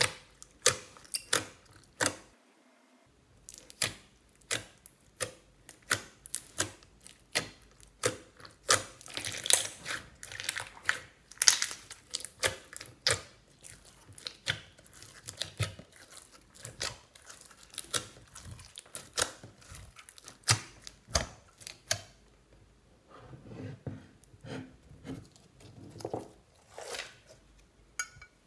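Clear glitter slime full of beads being squeezed and folded by hand, giving irregular sticky clicks, pops and crackles several times a second. After about 22 seconds these give way to softer, lower squishes.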